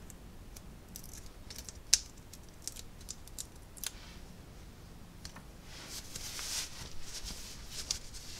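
Cardstock pieces being handled on a craft mat: light scattered clicks and taps, one sharp tap about two seconds in, then paper sliding and rustling for a couple of seconds near the end.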